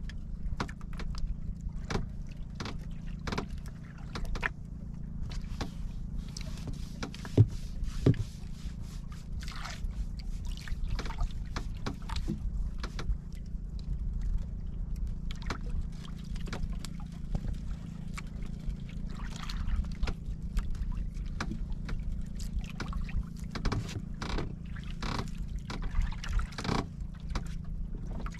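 Water lapping and gurgling against the hull of a small wooden outrigger boat over a steady low rumble, with irregular sharp knocks against the wood; the two loudest knocks come about seven and eight seconds in.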